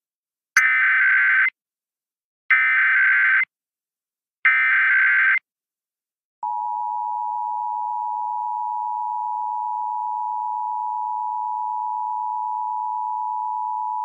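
Emergency Alert System test on FM radio. It opens with three one-second bursts of the SAME digital header, a warbling data tone with short gaps between bursts. About six seconds in, the steady two-tone EAS attention signal begins and holds to the end.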